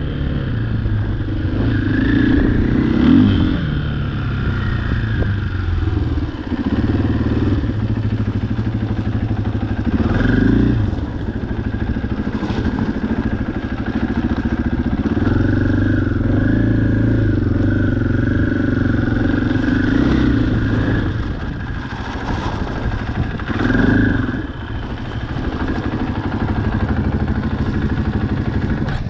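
Off-road vehicle engine running on a trail, revving up several times, with some clatter from the vehicle over rough ground.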